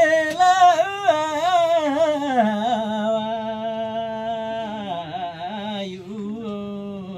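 A man's solo voice singing a Karmarong folk song unaccompanied, with ornamented bends in pitch and one long steady note held in the middle.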